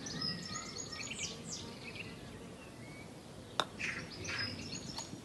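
Small birds chirping and calling, many short high chirps and quick sliding notes over faint background noise, with a single sharp click about three and a half seconds in.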